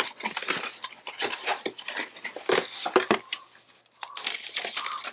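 Cardboard box flaps and paper packaging rustling and crinkling as a boxed kit is unpacked by hand, with scattered small knocks of the contents against the box. A denser rustle starts about four seconds in.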